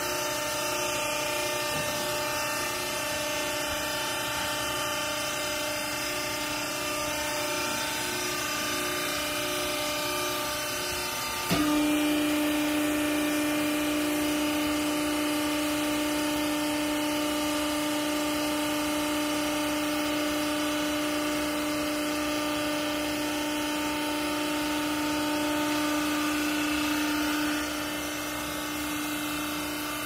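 Hydraulic clothing baler's motor and pump running with a steady machine hum. About a third of the way in a louder, steady whine sets in, and it falls away a couple of seconds before the end.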